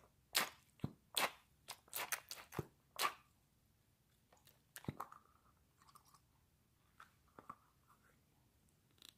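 Butter slime squished under a stress ball pressed into it in a plastic tub: a quick run of crackling, squelching pops over the first three seconds, then a few sparser ones about five and seven and a half seconds in.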